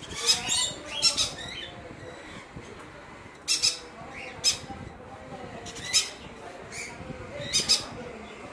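Green-cheeked conures giving short, harsh squawks, one after another or in quick pairs: about nine calls, with a pause of about two seconds after the first few.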